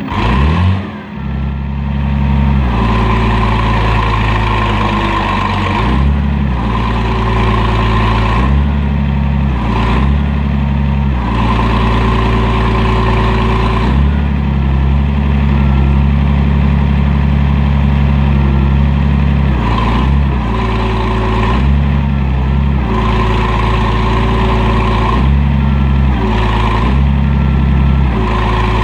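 IH 3616 backhoe's engine running under changing hydraulic load as the controls are worked, its note dipping briefly about a second in and shifting every few seconds. A higher hydraulic whine comes and goes with each load.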